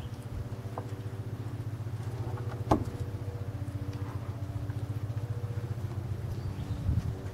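Steady low motor hum, with one sharp crack about two and a half seconds in while a dog gnaws a raw meaty bone.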